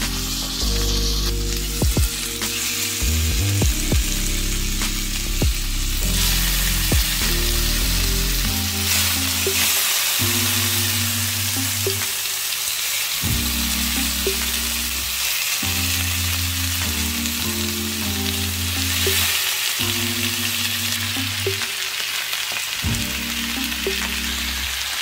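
Marinated meat, onion and green-pepper skewers sizzling in hot oil on a ridged grill pan, a steady hiss with scattered crackles. Background music with low sustained notes plays underneath.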